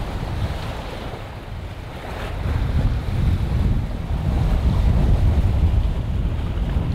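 Wind buffeting the microphone over the rush of sea water along a sailing yacht's hull under way. The roar eases about a second in and swells again from about three seconds on.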